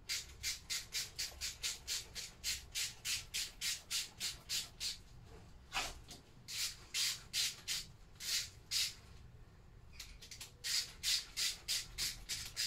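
Rhythmic back-and-forth scraping strokes by hand, about three a second, on the Lister D engine where the exhaust is to be fitted, typical of cleaning up the flange before the exhaust goes on. The strokes come in three runs, with short pauses about 5 s and 10 s in.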